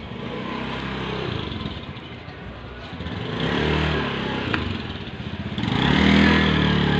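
Small motorcycle engine running and revving as the bike pulls away. It swells about halfway through and is loudest near the end.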